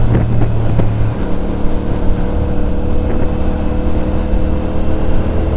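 CFMoto 450CL-C's 450cc parallel-twin engine, with its 270-degree firing order, running as the bike is ridden. Its note drops about a second in, then holds steady.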